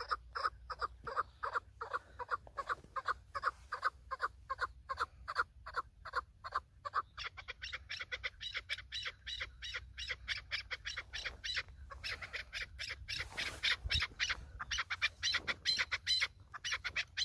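Chukar partridges calling: a rapid string of short clucking notes, about four a second, then from about seven seconds in a higher-pitched, faster series of squawking calls.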